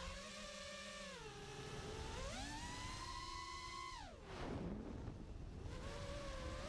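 FPV quadcopter's electric motors and propellers whining, the pitch sliding up and down with the throttle: a dip about a second in, a rise about two seconds in, a sharp drop just after four seconds with a brief whoosh of air, then climbing again near the end.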